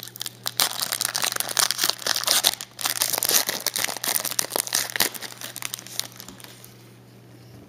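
Plastic wrapper of an Upper Deck Radiance trading-card pack being torn open and crinkled, a dense crackling that stops about six and a half seconds in, leaving only a low hum.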